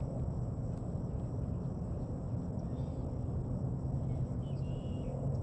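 Steady low hum of outdoor background, a distant engine-like drone, with a few short bird chirps near the end.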